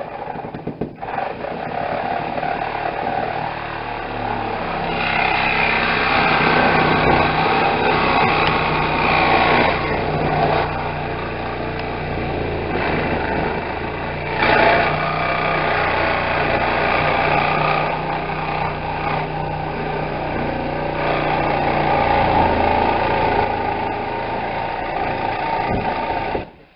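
Power tool cutting through the sheet-metal roof of a school bus, a loud steady motor hum under a harsh cutting noise that stops suddenly near the end.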